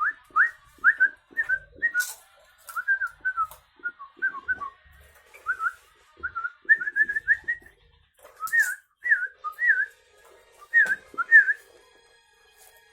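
Sooty-headed bulbul giving short whistled calls, each note a quick up-and-down sweep, in runs of three to six with short pauses between.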